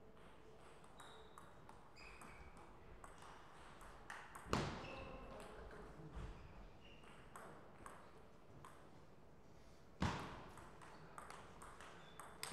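Celluloid-type table tennis ball clicking off rackets and pinging off the table during play, the light ticks coming irregularly. Two much louder sharp thuds land about four and a half and ten seconds in.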